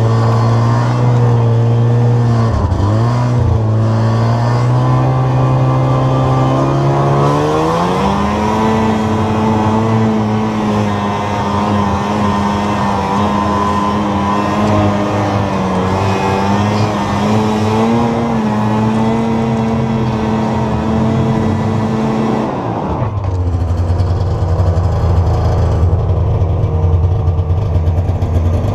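Snowmobile engine under heavy load dragging a long green cedar log up a steep snowy hill: it runs at a steady mid pitch, revs up about seven seconds in and holds high revs with small surges, then drops suddenly to a low, rough idle about 23 seconds in.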